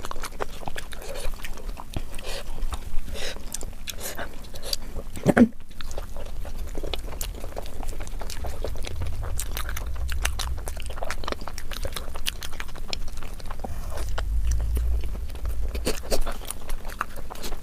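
Close-miked chewing and biting of puri with curry: steady wet mouth clicks and smacks, with one louder smack about five seconds in.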